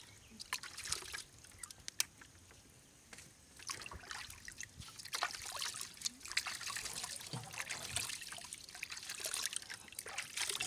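Hands washing freshly dug sweet potatoes in a bucket of water: irregular sloshing, splashing and dripping as the tubers are rubbed clean, sparser for a moment about two to three seconds in.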